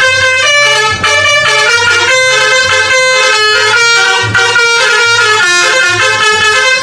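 Indonesian "telolet" multi-tone bus horn playing a melody, its loud horn notes stepping quickly from pitch to pitch.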